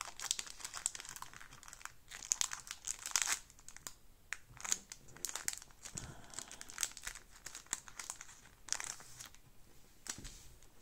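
Foil Pokémon booster pack wrapper crinkling and tearing as it is pulled open by hand, in irregular bursts of crackling.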